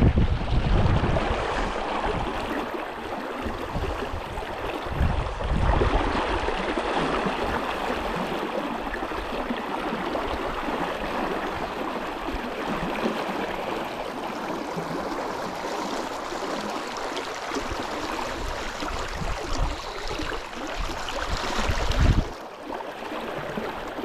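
Flowing brook water, a steady rushing hiss. Gusts of wind rumble on the microphone at the start, about five seconds in, and shortly before the end.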